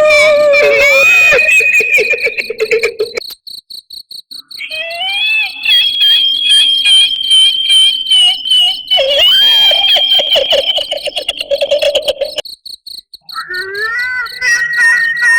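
Eerie 'female ghost crying' sound effect: a high, drawn-out wavering wail with a fast stutter, sliding slowly in pitch, over a steady high pulsing chirp like crickets. It breaks off twice for about a second.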